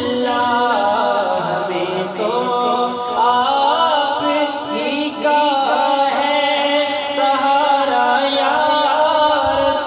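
A man singing a naat, an Urdu devotional song in praise of the Prophet, in long held notes that waver and bend in ornamented runs.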